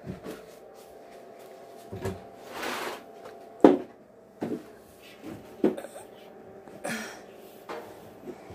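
About half a dozen knocks and bumps from laundry being handled at a top-loading washer and dryer, the sharpest about three and a half seconds in, over a low steady hum.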